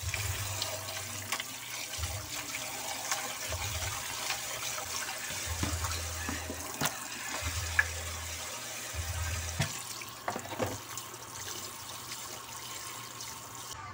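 Kitchen tap running into a plastic basin in a stainless-steel sink, splashing as raw pork chunks are rubbed and rinsed by hand, with occasional clicks and knocks. Near the end the stream runs over a potato being rinsed in the hands.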